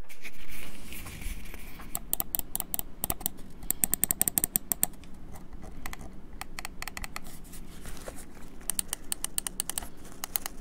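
Ninjutso Katana Superlight wireless gaming mouse clicking in quick runs, as a sound test of its switches, with a sparser stretch in the middle.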